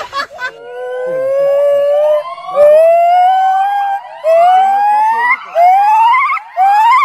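A primate calling: one long rising hoot, then shorter, higher rising whoops that come faster and faster.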